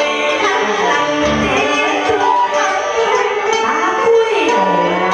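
Solo guitar playing a vọng cổ melody, plucked notes with wide pitch bends; about four seconds in, one note swoops down and climbs back up.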